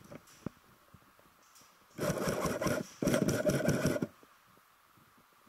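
Airsoft electric gun firing two rapid full-auto bursts about two seconds in, the second just after the first and a little longer, a fast mechanical rattle.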